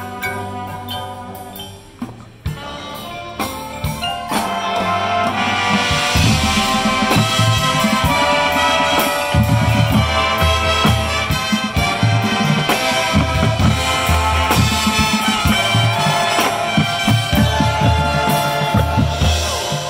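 Marching band playing live: brass over a front ensemble of mallet percussion and drum kit, with a pulsing low part. After a short dip about two seconds in, it builds to a loud full-band passage that eases off near the end.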